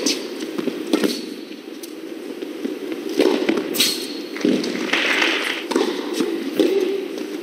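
Tennis rally on an indoor court: sharp racket strikes on the ball every second or so, with short high squeaks of shoes on the court surface. A brief hiss of noise comes about five seconds in.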